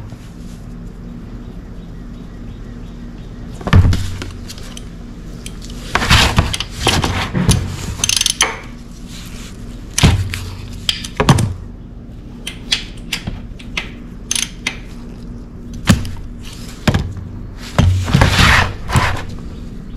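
Hand tools knocking and clinking, with short clatters and scrapes, as a drain plug is worked loose under a Honda VT1300 Stateline motorcycle and a plastic oil drain pan is shifted beneath it. The knocks come singly and in short bunches, a few seconds apart.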